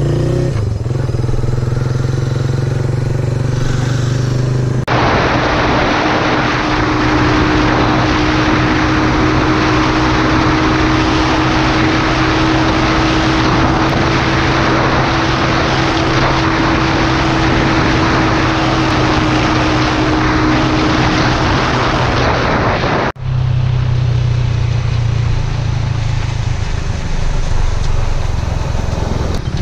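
Motorcycle engine running steadily, edited in clips. At about five seconds a cut brings a louder stretch with a rushing noise and a held engine note. At about 23 seconds a cut returns to the steadier engine sound.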